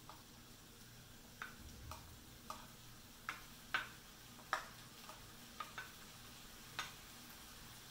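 A serving spoon knocking and scraping against a ceramic bowl, about ten sharp, irregular taps as food is knocked out of it into a frying pan. A faint steady sizzle of the pan frying runs beneath.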